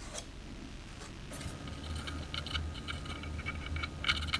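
Faint, irregular scratching strokes of a hand scraper taking the last glued-on kerfing remnants off the inside of an archtop guitar's wooden sides, over a low steady hum.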